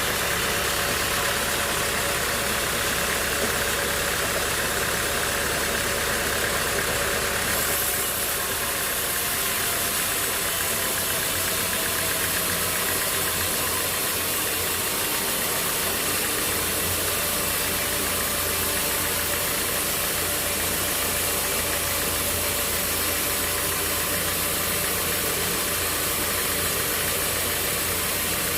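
A sawmill's engine running steadily, with an abrupt shift in its sound about eight seconds in.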